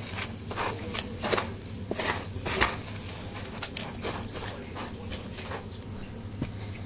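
A hand rummaging through loose dry substrate in a plastic tub: irregular scratchy rustles, busiest in the first few seconds, then sparser clicks and taps, over a low steady hum.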